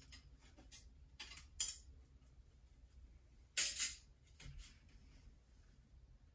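Thin metal wire being threaded through the holes of a perforated sheet-metal lamp shade to stitch its seam: a few faint clicks and scrapes of wire on metal, with one louder scrape a little past halfway.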